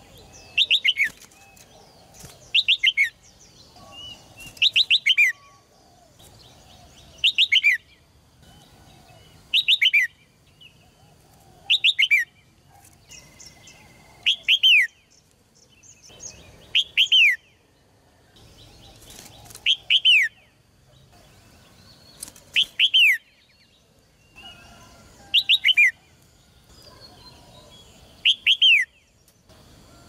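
Red-whiskered bulbul singing: short, loud phrases of a few quick falling whistled notes, repeated about every two and a half seconds.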